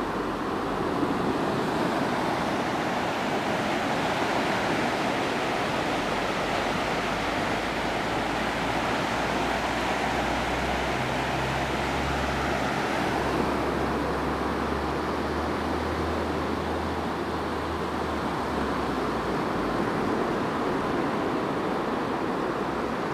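Small sea waves breaking and washing in over shallow sand: a steady rush of surf.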